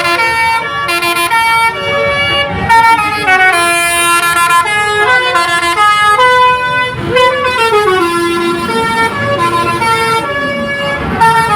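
A bus's multi-tone 'telolet' Basuri air horn playing a loud tune: a quick run of stepping notes, several pitches sounding together.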